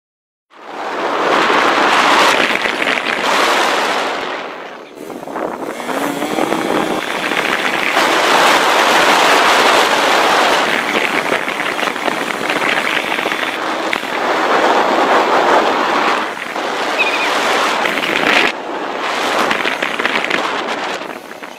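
Wind buffeting a phone's microphone on a moving motorbike: a loud, crackling rush of noise that dips briefly a few times.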